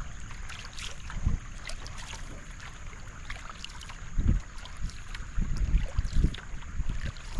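Canoe paddle strokes in calm creek water: splashing and dripping as the blade enters and leaves the water, with wind rumbling on the microphone in gusts, strongest from about four seconds in.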